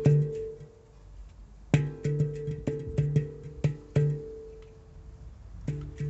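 A steel handpan played with the fingertips: a struck note rings out, then after a pause of about a second comes a quick run of notes, about three a second, that rings on and fades before playing resumes near the end.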